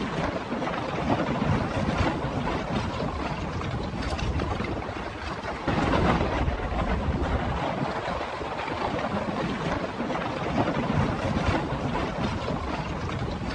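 Steady rushing noise of wind and water, with wind buffeting the microphone; it gets louder suddenly about six seconds in.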